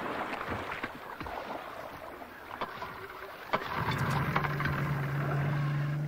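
Splashing and knocking around a small inflatable boat. About two-thirds of the way through, its small outboard motor starts and runs steadily.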